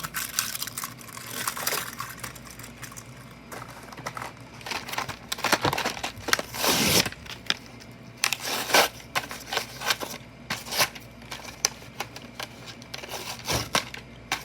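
Toy train packaging being handled and opened: plastic and cardboard crinkling, with scattered sharp clicks and knocks and one longer rustle about seven seconds in.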